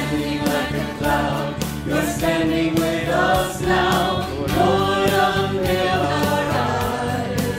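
Mixed choir of men's and women's voices singing a contemporary worship song together over electric bass guitar, on the lines "Descending like a cloud, you're standing with us now" and "Lord, unveil our eyes".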